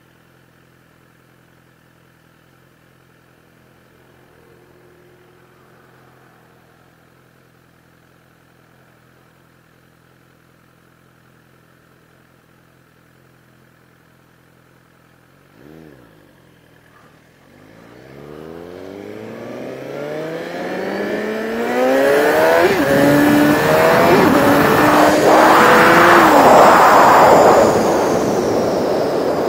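Sport bike engine idling quietly with a steady hum, a short blip about halfway through, then pulling away and accelerating hard through the gears, its pitch climbing and dropping at each upshift. Wind noise on the microphone grows loud as speed builds.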